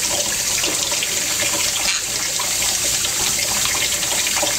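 Water running steadily from a tap into a sink or tub for a pet bird's bath, an even hiss.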